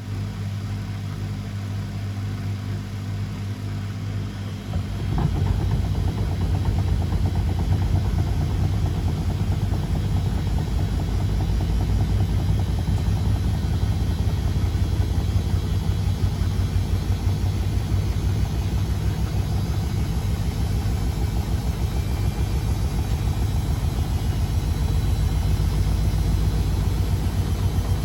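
Beko WMD 46160 washing machine running with a steady motor hum. About five seconds in it gets louder, with a fast, even low throbbing from the turning drum that holds steady after that.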